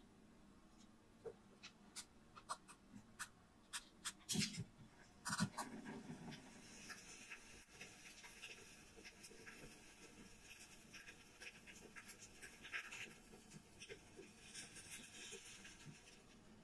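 Faint clicks and scrapes of wooden chopsticks and metal tongs on a miniature grill's wire mesh, with a few louder knocks about four to five seconds in. After that comes a faint steady sizzle with small crackles as fish fillets cook over the tiny flame.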